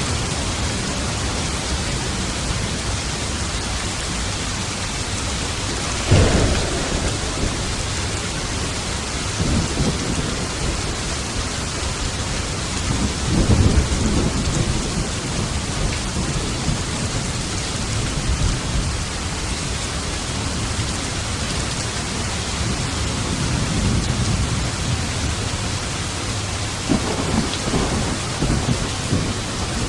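Steady heavy rain with thunder: a sharp thunderclap about six seconds in, a louder rolling rumble around the middle, and more rumbling near the end.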